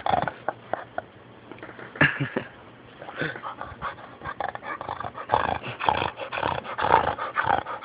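Dog snoring noisily in irregular snorts and rasps, growing busier and louder from about five seconds in.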